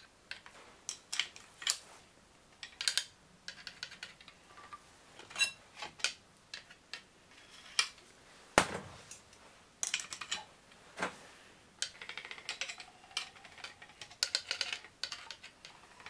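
Clutch plates of a Yamaha XT600 single-cylinder engine clinking and knocking as friction and steel plates are slid one by one onto the clutch basket. The sharp clinks come at uneven intervals, with the loudest knock about halfway through.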